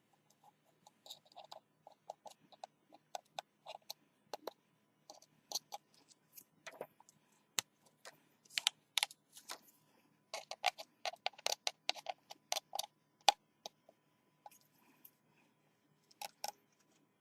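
Irregular small clicks and taps of hands and tools handling a smartphone's frame and adhesive tape, busiest in the middle stretch.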